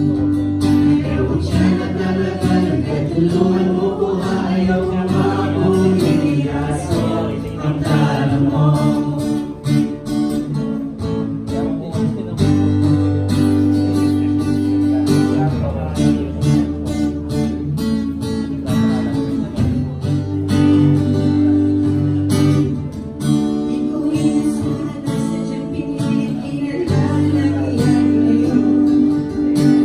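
Live worship song sung in Tagalog by a small group of singers into microphones, over strummed acoustic guitar and a steady bass line, amplified through the church's sound system.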